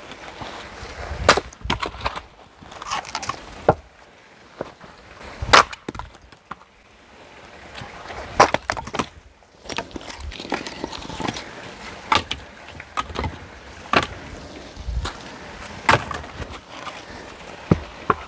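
Hand axe splitting firewood: sharp woody strikes about every two seconds, with splintering and smaller knocks of wood between them.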